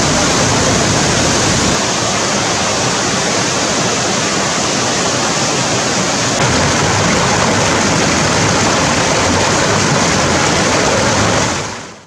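Steady rush of a small waterfall and a fast, rocky stream, fading out near the end.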